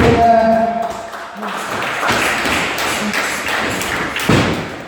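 Wrestling ring thuds as bodies hit the canvas, over crowd noise, with a held shout at the start and a sharp, loud slam about four seconds in.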